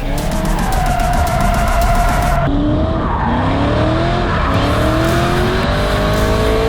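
V8 drift car engine revving up repeatedly, its pitch climbing again and again, with tyre squeal as the car slides, over background music. The sound changes abruptly about two and a half seconds in.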